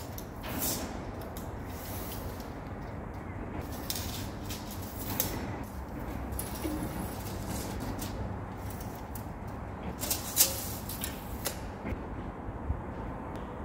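Steady workshop hum with a few short clicks and knocks of steel being handled, the sharpest about ten seconds in, as a new steel side-cutter plate and its locking-plier clamps are set on an excavator bucket.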